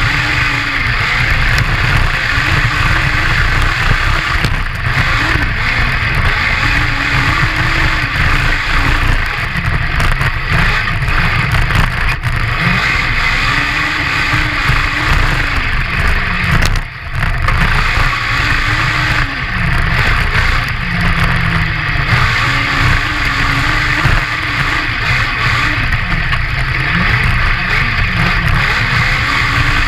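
Honda CBR1000 inline-four motorcycle engine in a homemade crosskart buggy, driven hard over sand and revving up and down over and over, with wind rushing past the front-mounted camera. The engine drops off sharply for a moment about 17 seconds in.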